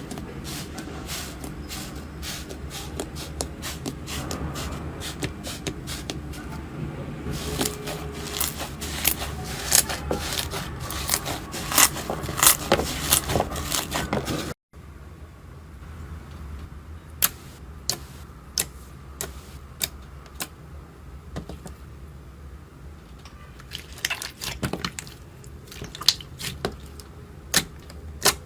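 Slime being handled, with dense crackling and popping clicks that build up over the first half. After a sudden cut about halfway through, there is a quieter stretch of scattered sharp pops.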